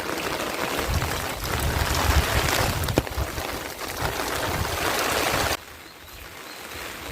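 Heavy rain falling with rainwater running, a steady hiss; it drops sharply to a quieter level about five and a half seconds in.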